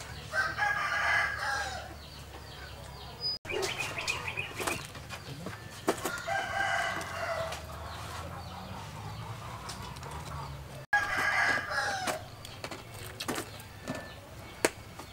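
A rooster crowing three times, each crow lasting about two seconds, with faint clicks in between.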